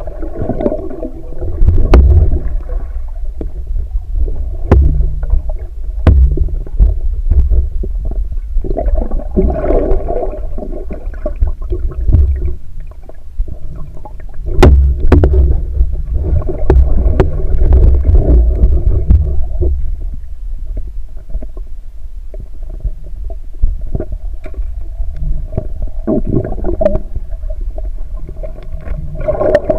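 Muffled underwater sound picked up by a camera submerged in a river: a heavy low rumble of moving water with gurgling swells and scattered sharp clicks.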